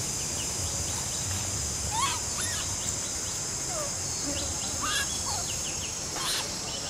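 Steady high-pitched insect drone with short chirping bird calls over it, and a few brief clicks about two, five and six seconds in.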